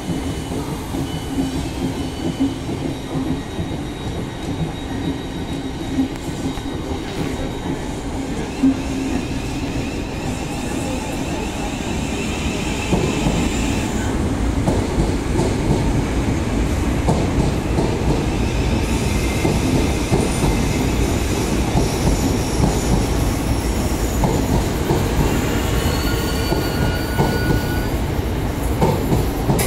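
Electric multiple-unit trains moving through a station platform: a Thameslink train on the far track, then a Southeastern train rolling slowly alongside the platform with a steady rumble of wheels on rails that grows louder about halfway through. High-pitched squealing joins in near the end as it moves slowly along the platform.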